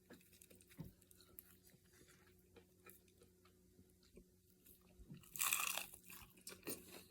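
Chewing and crunching on a crispy air-fried chicken wing drumette coated in fish-crisp breading. It is mostly faint, with one louder stretch a little past five seconds in.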